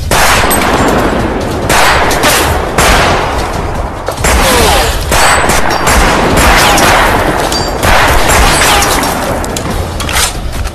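Loud, dense gunfire from a film soundtrack: many shots overlapping in continuous bursts, like automatic weapons firing in a battle.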